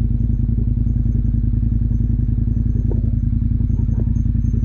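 KTM motorcycle engine running at a steady speed, with its rapid, even firing pulses and a couple of faint clicks about three and four seconds in.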